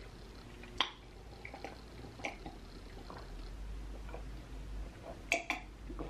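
Close-miked drinking from a mug: quiet sips and swallows with a few sharp wet mouth clicks, two of them close together near the end.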